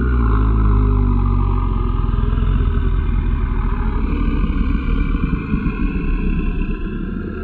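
Designed monster creature growl: one long, deep, rough growl that starts abruptly and slowly fades near the end.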